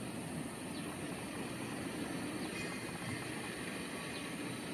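Boeing 787-8 airliner's jet engines running steadily as it rolls along a rain-soaked runway, an even rumble with hiss mixed in.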